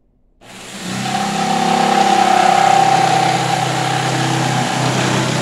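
Corded Skil jigsaw starting up about half a second in and cutting through a wooden board at a steady speed: motor whine with the blade sawing through the wood.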